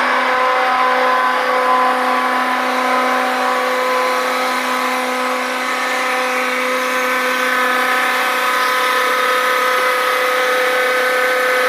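A dry-mix concrete truck runs steadily with its PTO engaged, giving a constant pitched mechanical hum. The lowest tone drops out about seven seconds in.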